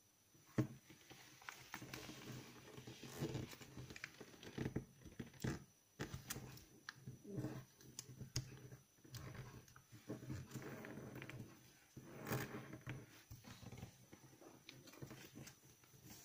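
A sheet of origami paper being handled and folded on a wooden table: irregular rustling, crinkling and sliding of paper, with fingers creasing it and small taps and clicks. It starts with a sharp click about half a second in.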